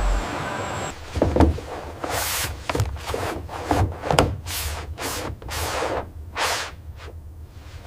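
Hands rubbing and pressing felt pads onto a truck's sheet-metal roof: a couple of soft thumps about a second in, then a run of short rubbing swishes, about two a second.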